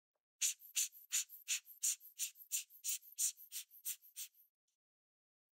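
A tool rubbing against the back of a watch dial in about a dozen quick, even scratchy strokes, about three a second, which stop about four and a half seconds in.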